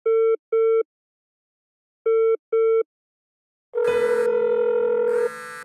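Telephone ringing in double beeps: two short beeps, a pause, then two more about two seconds later. A little under four seconds in, music comes in with steady held notes and shimmering high hits.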